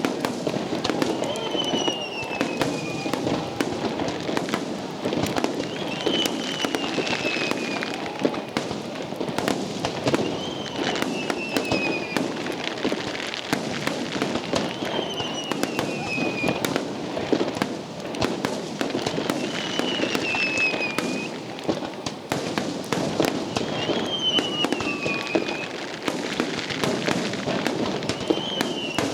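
Fireworks display: a continuous run of bangs and crackling from bursting shells. A high falling whistle-like tone repeats about every four seconds.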